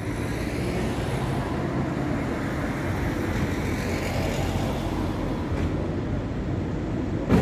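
Steady urban road-traffic noise of motor vehicles running on a city street.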